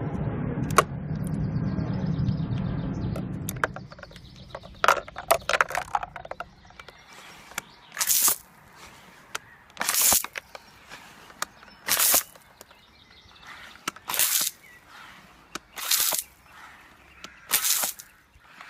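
Nerf Super Soaker Freeze Fire pump-action water blaster being fired over and over: short spurts of spraying water about every two seconds, each about half a second long, filling the second half. The first few seconds hold a low, steady noise with a few clicks after it.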